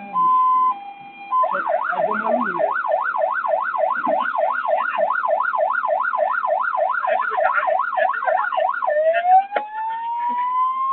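Fire engine's electronic siren, changing patterns. It opens with a two-tone hi-lo, then a fast yelp sweeping up and down about three times a second, and near the end it switches to a slow rising wail.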